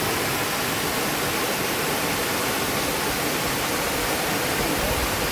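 Waterfall, with water pouring fast down a mountainside in a steady, even rush.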